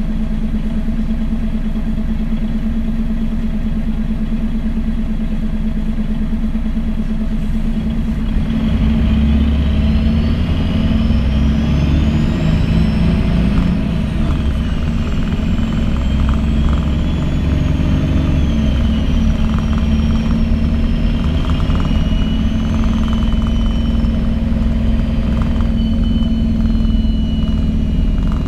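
MAN NG 313 articulated bus's rear-mounted diesel engine, heard from inside the passenger cabin: it runs steadily at idle, then grows louder about eight seconds in as the bus pulls away. A high whine from the Voith automatic gearbox rises and falls in pitch as it works through the gears.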